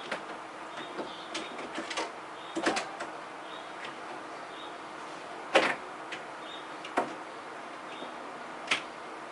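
Scattered clicks and light knocks over a steady hiss, the loudest a little past halfway, then two more about a second and a half apart.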